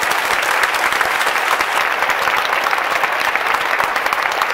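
Stadium crowd applauding steadily, many hands clapping at once.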